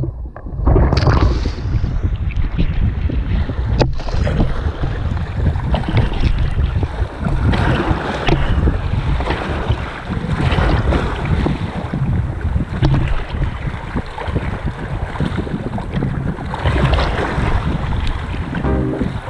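Small waves splashing and washing over shoreline rocks close to the microphone, with heavy wind buffeting the microphone throughout.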